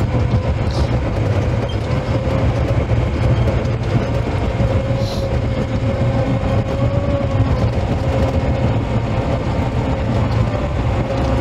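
Caterpillar dozer's diesel engine running under load from inside the cab, a steady low rumble with a steady whine above it, as the machine pushes a grading pass.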